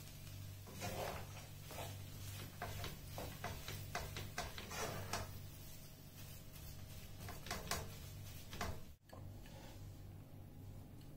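A spatula scraping and knocking in a nonstick frying pan as potato, peas and minced meat are stirred together, in irregular strokes over a steady low hum. The scraping stops near the end.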